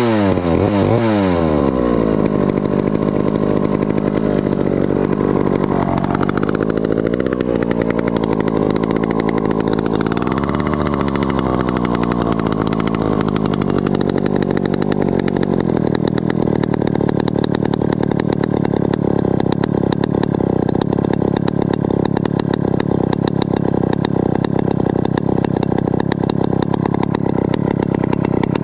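Stihl 051 two-stroke chainsaw engine revved up and down quickly, then settling into a steady idle on a freshly adjusted idle setting. Its speed wanders briefly after a few seconds before holding even.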